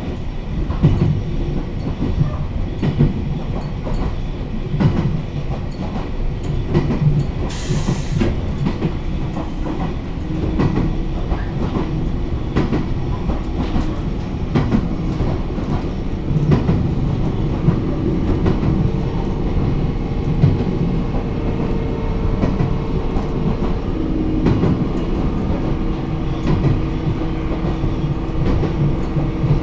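Cabin running noise of a Kamikōchi Line electric train under way: a steady low rumble of wheels on rail with many rail-joint clicks. There is a short hiss about eight seconds in, and a steady hum joins in past the halfway mark.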